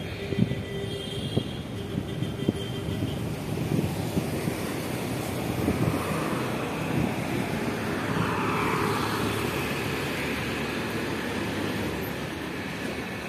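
City road traffic noise: vehicle engines running and tyres on the road, a steady low rumble. Several sharp knocks come in the first few seconds.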